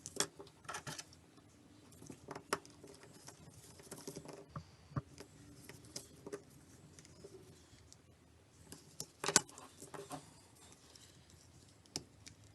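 Plastic casing of a 3G device being pried and handled with small hand tools: scattered clicks, taps and scrapes, with the sharpest snap about nine seconds in.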